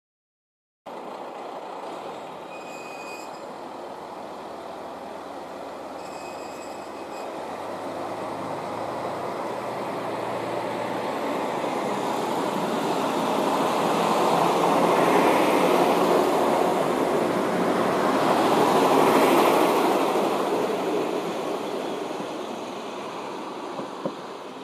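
Kashima Rinkai Railway 6000 series diesel railcar pulling out of a station: its diesel engine and wheels on the rails grow louder as it passes close by, loudest past the middle, then fade as it moves away.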